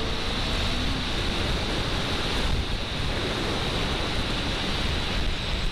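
Steady rush of wind and road noise over the microphone of a motorcycle at about 100 km/h. The Honda CBR600F's inline-four engine is faintly heard rising in pitch at the very start.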